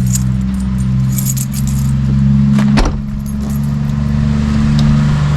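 Keys or small metal parts jangling, with one sharp click a little under three seconds in, over a steady low hum that shifts pitch in steps.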